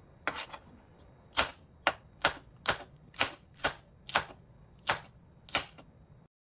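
Knife chopping food on a cutting board: about ten sharp knocks at an uneven pace of roughly two a second. The sound cuts off abruptly near the end.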